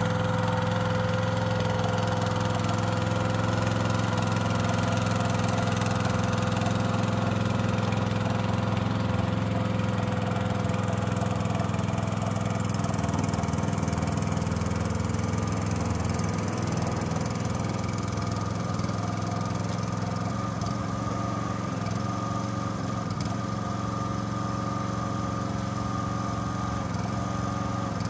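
Small engine of a tracked mini dumper running steadily as the machine crawls through mud. It becomes slightly fainter from about halfway through.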